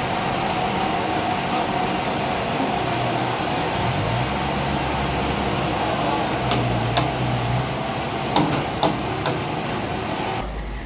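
A steady mechanical hum with a held tone, like a running machine, with a few sharp knocks in the second half.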